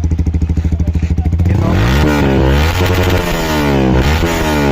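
Yamaha R15 V3's 155 cc single-cylinder engine through an aftermarket exhaust: idling with a quick pulsing beat, then, about a second and a half in, revved in several blips that rise and fall in pitch.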